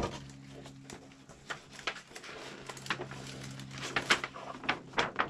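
Large paper plan sheets rustling and crinkling as they are handled and turned, with crisp crackles throughout and a few louder ones near the end.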